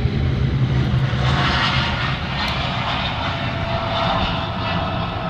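Jet airliner engines at takeoff power: a steady low rumble, joined a little over a second in by a brighter hiss and a faint steady whine.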